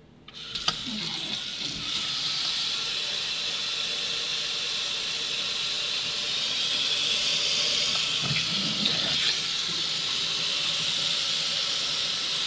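A kitchen tap is turned on just after the start, and its stream runs steadily into a stainless steel sink, splashing onto a puddle of liquid soap.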